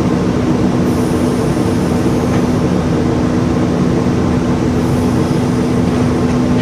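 Excavator's diesel engine running at a steady speed, with a constant low hum.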